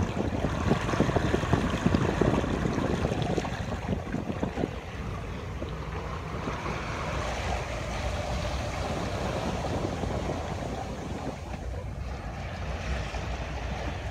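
Wind buffeting the microphone over the rush of water along a sailboat's hull as it sails through choppy water. The gusty buffeting eases about five seconds in, leaving a steadier, quieter rush.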